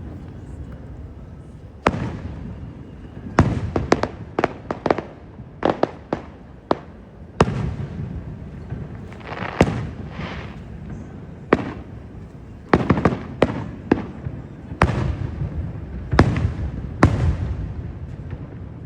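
Fireworks display: aerial shells bursting one after another at irregular intervals, sharp bangs that sometimes come in quick clusters, each trailing off in a low rumbling echo. A short hissing stretch comes about halfway through.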